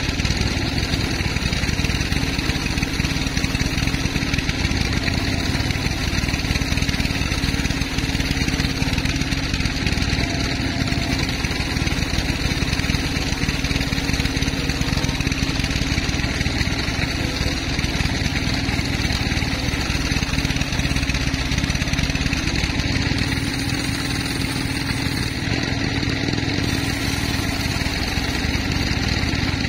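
Sawmill machinery running steadily: a continuous engine-like drone with a steady hum, unbroken for the whole stretch.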